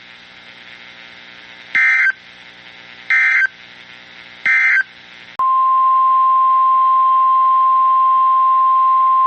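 Three short bursts of screechy EAS/SAME digital data tones about a second apart, the end-of-message code closing the previous alert. About five seconds in, the steady single-pitch NOAA Weather Radio 1050 Hz warning alarm tone starts and holds, announcing the next warning.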